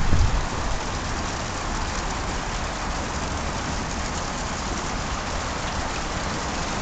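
Water pouring from a wall fountain's spouts down tiled pillars into a shallow pool, a steady even splashing.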